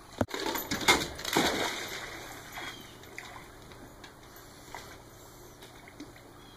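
Pool water splashing as a dog swims, loudest for the first second or two, then fading to light sloshing.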